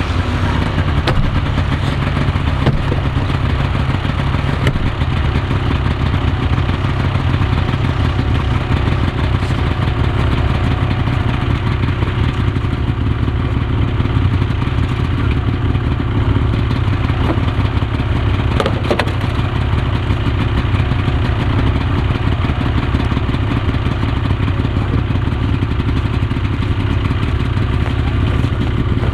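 Snowmobile engine idling steadily close by, with one brief click about two-thirds of the way through.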